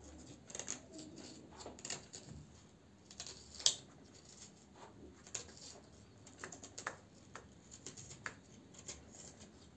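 A knife tip poking and scraping through the bottom of a hollowed-out black radish to make drip holes: faint, irregular small clicks and scrapes, with one sharper click a little over three and a half seconds in.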